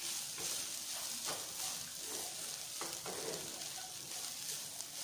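Sprouted moth beans frying in oil in a pan with a steady sizzle, stirred with a spoon that scrapes through them a few times.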